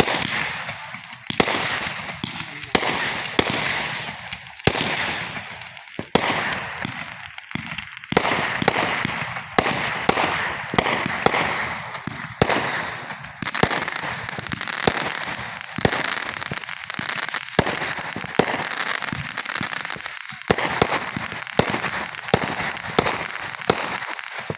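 Fireworks going off in rapid succession: sharp bangs every second or so over a dense, near-continuous crackling.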